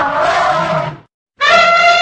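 Elephant trumpeting: a loud, rough trumpet blast cuts off about halfway through. After a short silence, a second, clearer call at a steady pitch begins.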